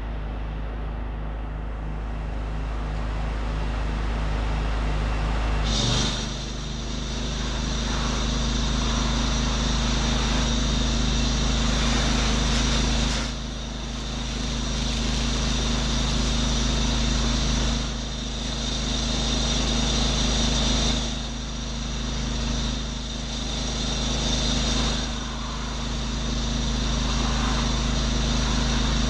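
Pressure washer rig's engine running steadily, and about six seconds in a high-pressure spray starts hissing from the wand. The spray cuts out briefly four times as the trigger is let go.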